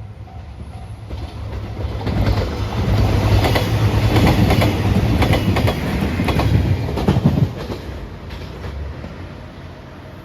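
A train passing over a level crossing, its wheels clattering rhythmically over the rail joints. The clatter builds over the first two seconds and drops off suddenly about seven and a half seconds in as the train clears the crossing. A level-crossing warning bell rings faintly at the start.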